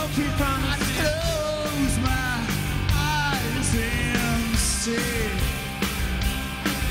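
Live rock band performance: a male lead vocal sung over electric guitar and drums, the full band playing loud and steady.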